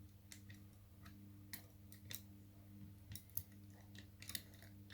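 Scattered faint metallic clicks from lever lock picking tools working inside a Union British Standard lever mortice lock, as the pick wire lifts and checks the levers one at a time.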